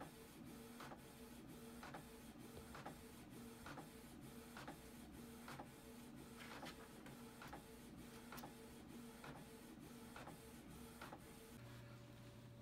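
Canon inkjet printer printing a page: the print-head carriage shuttles back and forth with a click about once a second and a pulsing motor whine, stopping shortly before the end.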